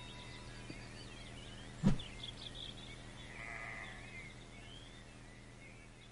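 Faint background of an old recording: a steady low hum under faint chirping, a single sharp knock about two seconds in, and a bleat-like animal call about three and a half seconds in.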